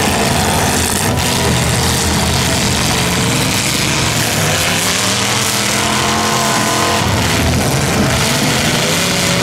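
Several demolition derby cars' engines running and revving hard as the cars drive and manoeuvre, a loud, continuous mix of engines rising and falling in pitch.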